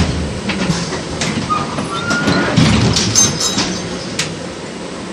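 LVS-86K tram heard from inside, running on its rails with a steady rumble, clicks and clatter from the wheels and a brief wheel squeal about two seconds in. The sound eases off near the end.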